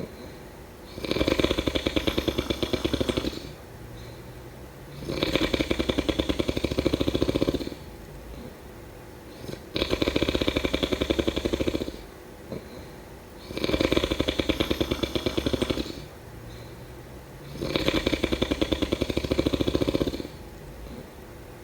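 A person snoring in a slow, regular rhythm: five long, rattling snores, each about two seconds, about one every four seconds, with quieter pauses between.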